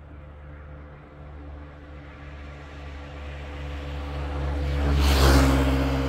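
A motor vehicle approaching and passing close by: a low engine hum that builds steadily, peaks with a whoosh about five seconds in, then begins to fade.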